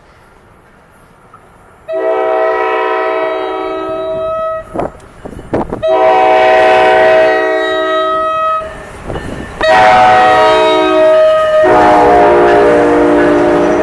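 ALP-45DP locomotive's air horn sounding four blasts while approaching and passing: two long ones, a shorter one, then a long one. The last blast drops in pitch as the locomotive goes by, with the rumble of the train's wheels on the rails underneath.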